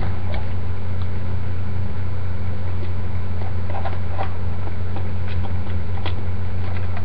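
Steady low electrical hum, with a few faint clicks and crinkles of toy packaging being handled and opened.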